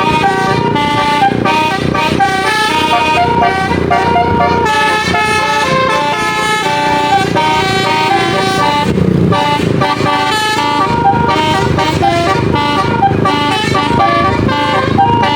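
Basuri multi-tone 'telolet' bus horn playing a continuous melody of quickly changing notes, over a steady low rumble.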